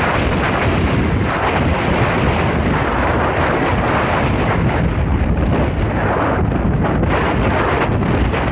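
Strong wind buffeting the phone's microphone: a loud, steady rumble.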